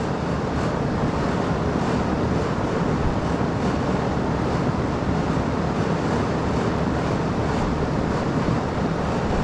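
Steady rushing noise of an outdoor central air-conditioning condenser unit running, with no change in level.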